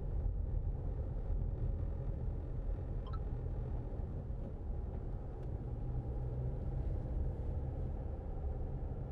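Steady low rumble of a Land Rover Freelander 2's engine and tyres, heard from inside the car as it drives at around 20 mph.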